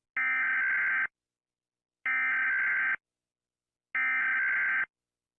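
Emergency Alert System SAME header: three bursts of digital data tones, each just under a second long and about a second apart, which open an EAS alert.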